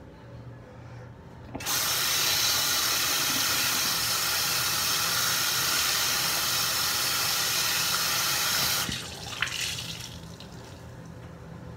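Single-lever bathroom sink faucet turned on, water running hard into the basin for about seven seconds as a sponge is rinsed under it, then shut off suddenly. Afterwards, softer dripping and splashing as the sponge is wrung out over the sink.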